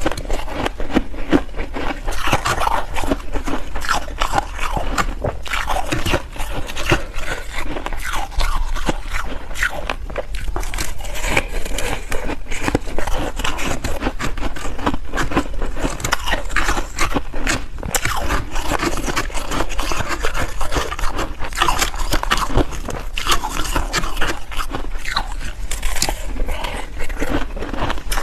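Ice being bitten and crunched up close, a dense, continuous run of crackling crunches.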